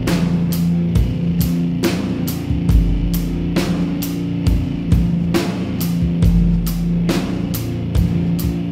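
Music with a drum kit and electric guitar, a steady fast beat.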